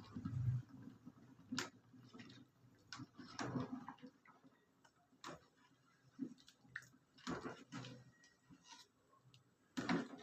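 Scattered light clicks and knocks at irregular intervals, the strongest just after the start and near the end.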